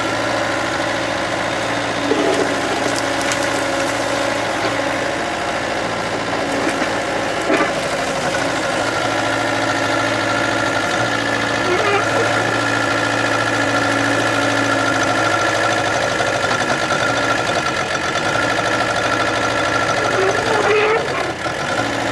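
Diesel engine of an Airman 30 mini excavator running steadily while its boom and bucket work, with a few brief knocks as the bucket tears into the weeds.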